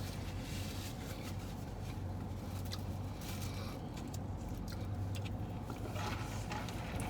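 Rustling and light clicks of takeout food packaging being handled, over a steady low hum.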